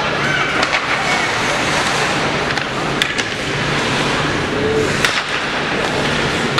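Ice rink ambience during a hockey game: a steady rush of skates scraping on the ice with spectators talking faintly, and two sharp clacks about three and five seconds in.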